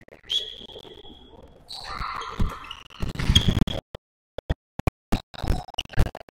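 Basketball bouncing on a hardwood gym floor as a player dribbles: a run of sharp, irregular bounces in the second half, with the sound cutting out between them. A thin high steady tone sounds briefly near the start.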